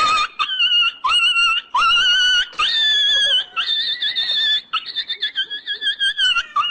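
An animal giving a run of high-pitched, wavering cries, one after another, each under a second long and starting with a quick upward slide.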